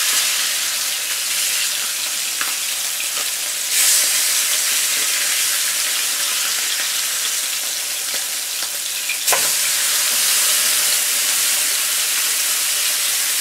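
Salmon fillets sizzling steadily in a hot nonstick frying pan as they sear. The sizzle flares up about four seconds in, and again after a brief knock near nine seconds, while a fillet is turned over with a spatula.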